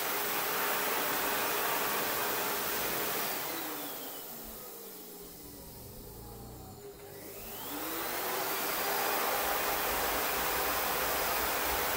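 Electric air pump motor running steadily with a whine. About four seconds in it winds down and its pitch falls, then it spins back up with a rising pitch and runs steadily again.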